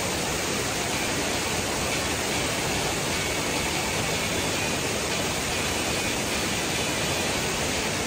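Steady, even rush of a curtain waterfall, with water pouring straight out of a stone cliff face.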